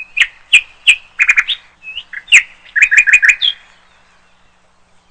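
Small bird chirping: short sharp tweets, a few single ones and then quick runs of three or four, stopping about three and a half seconds in.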